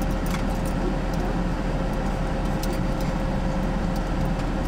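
Steady low rumble of a car's engine idling, heard from inside the cabin, with a constant hum. A few faint clicks are heard over it.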